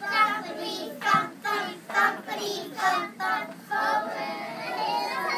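A group of preschool children singing a song together, syllable by syllable in short sung phrases.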